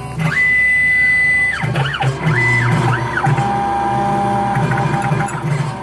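Computerised key-cutting machine running a cut. Its stepper motors whine in pitches that glide up, hold steady and glide back down as the carriage moves the key blank, over the steady low hum of the machine.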